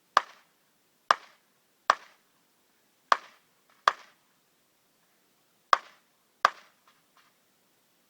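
Rifle shots on a shooting range, seven sharp cracks at uneven intervals, each with a short tail. Several shooters are firing in turn.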